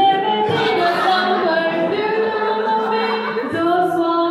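A group of men and women singing a song together through microphones, holding long notes.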